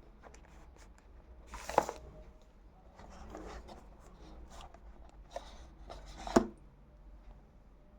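Hands handling a tablet and its packaging: light rubbing, rustling and small clicks, with two sharp knocks, one about two seconds in and a louder one about six and a half seconds in.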